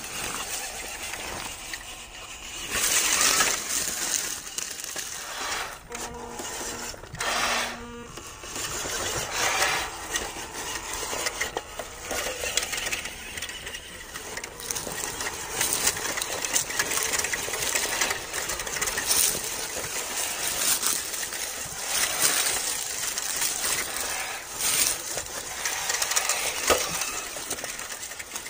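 WPL B-1 1:16 RC military truck driving over dry leaves, twigs, pine needles and gravel: the tyres crunch and the plastic body and chassis rattle, with repeated louder bursts of crunching as it climbs over the rough ground.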